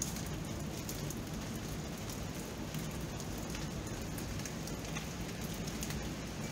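Steady rain falling: an even hiss with many small drop ticks scattered through it.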